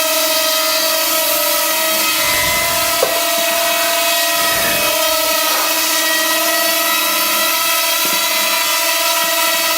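Parrot Rolling Spider quadcopter minidrone hovering, its four small propellers and motors giving a steady, even-pitched whine. A short sharp click about three seconds in.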